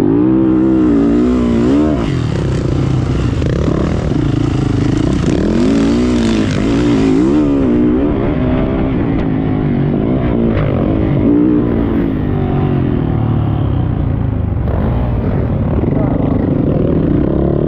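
Motocross bike engine heard on board, revving up and falling back again and again as the rider accelerates and shifts around the track. A high rushing noise lies over it for the first eight seconds or so.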